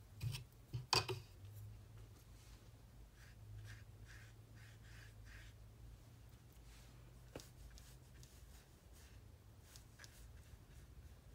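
A watercolour brush clicks against the rim of a water jar a few times in the first second, then makes soft, faint strokes on watercolour paper as paint is laid on.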